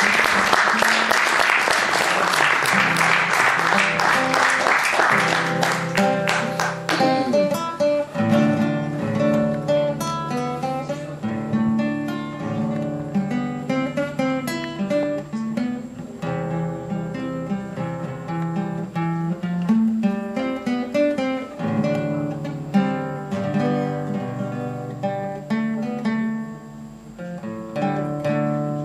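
Audience applause that fades out over the first six or seven seconds, while an acoustic guitar plays on alone. The guitar is plucked by hand in separate notes and chords.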